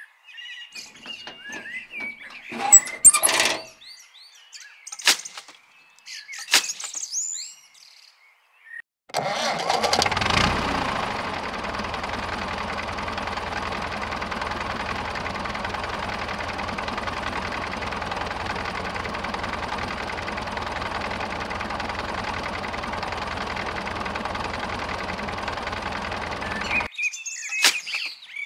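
Scattered light clicks and taps, then about nine seconds in a tractor engine starts with a brief surge and runs steadily at an even pitch until it cuts off sharply near the end.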